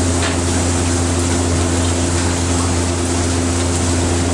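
Steady roar of a high-pressure gas wok burner under a wok of fried rice, with a constant low hum underneath.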